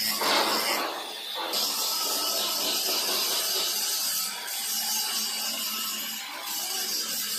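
Angle grinder with a cutting disc cutting through a metal pipe: a steady, high grinding hiss that eases off briefly a few times.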